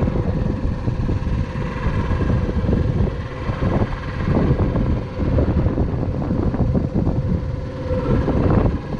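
Boat's motor running with a steady drone, with wind rumbling on the microphone.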